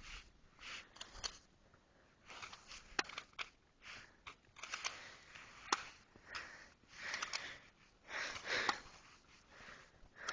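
Quiet rustling and sniffing close to the microphone, with a few sharp clicks spread through.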